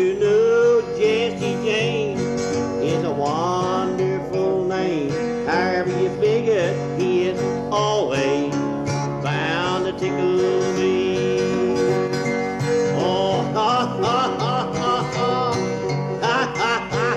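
Country-style music with plucked acoustic guitar and a singing voice.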